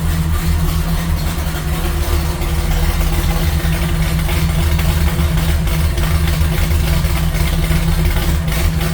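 Pontiac V8 of a 1970 Trans Am, breathing through a tunnel ram intake with two 650 four-barrel carburettors, running at a steady idle.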